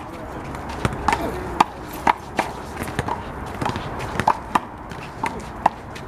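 Big blue rubber handball being struck by hand and smacking off the wall and court in a rally: about a dozen sharp, ringing slaps at irregular intervals.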